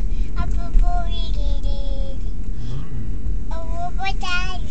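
A toddler girl singing a song in two short phrases with held notes and a pause between them, over a steady low rumble inside a car.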